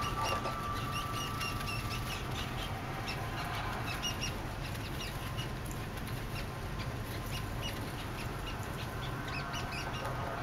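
Many short, high-pitched chirps, irregular and overlapping, over a steady low hum.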